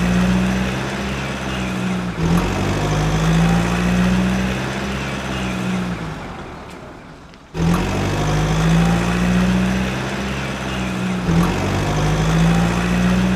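Heavy truck-type engine running, its pitch rising and falling in repeated surges. It fades away about six seconds in, then cuts back in abruptly about a second and a half later.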